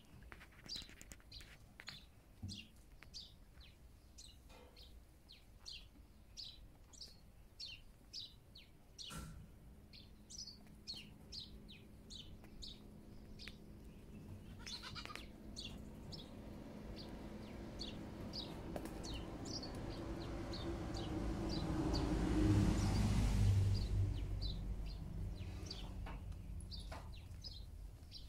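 Small birds chirping throughout, with a goat bleating among the pen of billy goats. A low engine sound swells slowly over about ten seconds, is loudest late on, then fades away.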